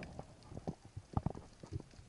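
Irregular underwater knocks and clicks, a few each second, the sharpest pair about a second in, heard through a camera housing while a speared lionfish is lifted on the spear shaft.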